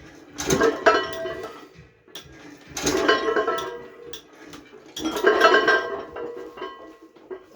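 Three bursts of clinking, ringing clatter, like metal or dishware being struck, about two and a half seconds apart, with lighter clinks between them.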